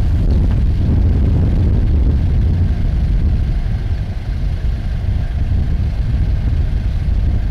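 Steady low rumble of an idling vehicle engine.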